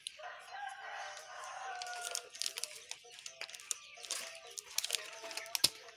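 A rooster crows once, one long call of about two seconds near the start. It is followed by crackling and clicking of a medicine packet being handled.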